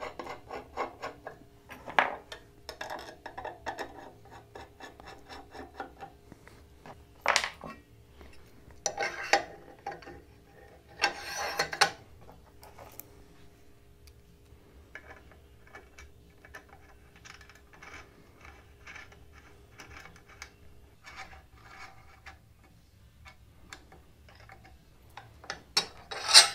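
Irregular metal clicking and scraping from hand work on a steel motorcycle fork vise: a hex key working the base-plate bolts, then steel slide bars being slid into their bracket. Several louder scrapes come in the middle and one near the end.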